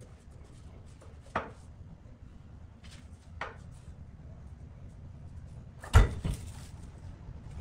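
A heavy charred log knocking against a metal wood lathe as it is handled between the centres. A sharp knock comes about a second in and a lighter one a couple of seconds later. The loudest thud, with a second just after it, comes about six seconds in as the log drops off the tailstock onto the lathe bed. A low steady hum runs underneath.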